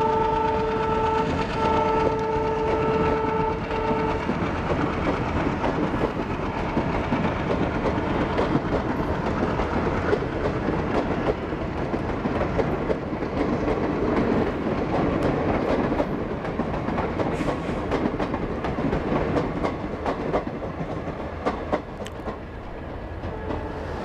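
ALCO diesel-electric locomotive hauling an express train: a horn blast, broken briefly about a second in, stops about four seconds in. Then the diesel engine runs on under load as the train gathers speed, with a steady rumble and wheels clicking over rail joints.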